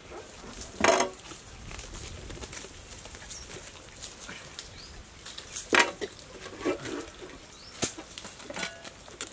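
Watermelons being cut with knives and handled on steel platters: scattered short crunches and knocks, the loudest about a second in and just before six seconds in.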